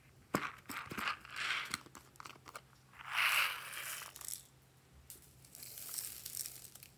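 A small plastic container with a toy topper being handled and twisted open: a run of sharp plastic clicks, then a louder crackling rustle as the cap is worked, and a thinner rustle near the end.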